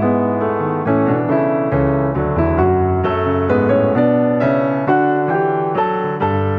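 Piano music laid over the pictures: a flowing line of several struck notes a second over held bass notes.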